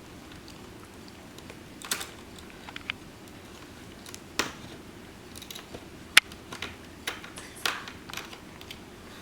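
Irregular small clicks and taps of a Phillips screwdriver working small screws out of a laptop's plastic screen bezel, about eight in all, the sharpest about six seconds in.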